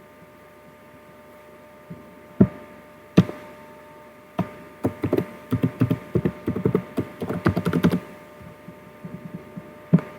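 Typing on a computer keyboard: two separate clicks, then a quick run of keystrokes for about three and a half seconds, then a few light taps near the end, over a steady electrical hum.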